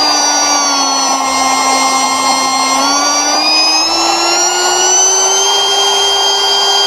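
DeWalt DCW600 cordless compact router's brushless motor running free with a steady whine. Its pitch sinks over the first couple of seconds, then climbs from about three seconds in and holds higher as the speed dial is turned through its range of 16,000 to 25,500 rpm.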